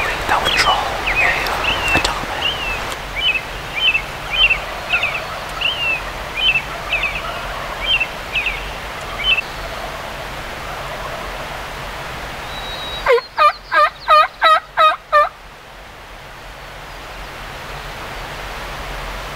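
Turkey calling: a loud series of seven evenly spaced notes over about two seconds, starting about 13 seconds in. Before it, a small bird sings a run of short, high chirps.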